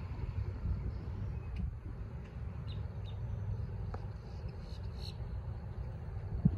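Lakeside ambience: a steady low rumble with a few faint bird chirps in the middle, and one sharp click near the end.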